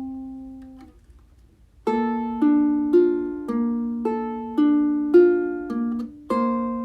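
Instrumental music on a plucked string instrument. A note rings out and fades, then after a short pause a melody starts about two seconds in, with notes plucked roughly twice a second, each one ringing and decaying.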